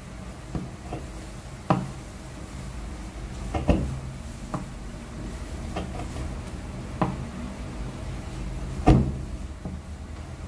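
Irregular wooden knocks and clunks, about six spread over the stretch, with the loudest one near the end, from wood being handled and struck at the workbench.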